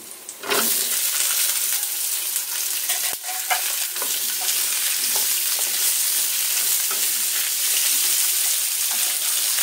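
Sliced red and yellow bell peppers and cucumber hitting hot oil and garlic in a non-stick wok, setting off a sudden loud sizzle about half a second in that holds steady as they are stir-fried. A wooden spatula scrapes and taps against the pan now and then.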